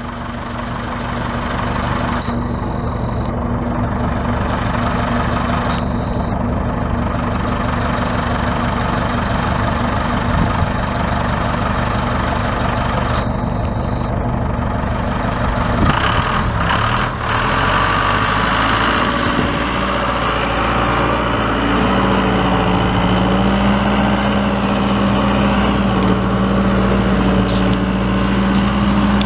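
Backhoe engine running steadily. About three-quarters of the way in, a steady hum becomes stronger and holds.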